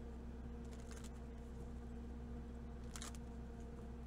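Tarot cards being handled: two short, crisp rustles, about a second in and about three seconds in, over a steady low hum.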